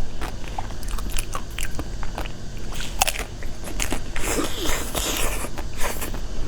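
Close-up eating sounds: a person biting and chewing food, with scattered sharp crunches and a denser burst of crunching about four seconds in.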